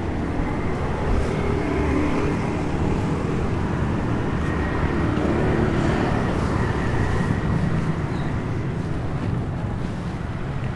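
Street traffic: vehicle engines running and passing close by, a steady rumble with engine tones that swell and fade as vehicles go past.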